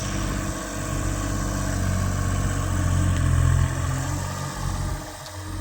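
Diesel engine of a Sumitomo S100 excavator running under load while it loads a dump truck; the low engine note swells about three seconds in and eases off near the end.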